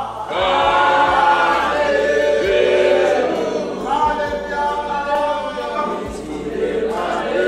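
Choir singing a gospel song, several voices holding long notes in phrases, a new phrase starting about four seconds in.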